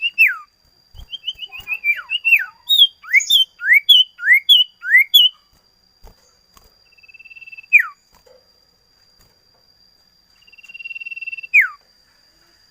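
A songbird singing loud, clear whistled phrases. It opens with a run of quick chips, then a string of rising and falling slurred whistles. Later it twice holds a trilling note that ends in a sharp downward slur.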